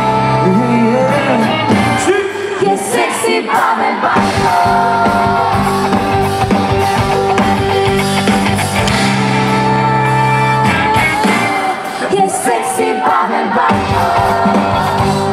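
Live band music with amplified singing: a man sings into a handheld microphone over the band, with backing singers beside him. The low end thins out for a couple of seconds near the start and again briefly near the end.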